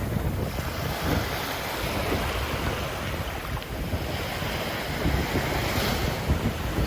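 Ocean surf breaking and washing up the sand in a steady wash, with a fuller surge just before the end. Wind buffets the microphone, adding a low rumble.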